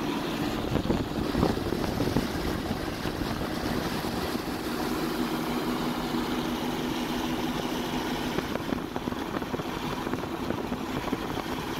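Steady road and engine noise of a car driving, heard from inside the cabin, with a low, even hum.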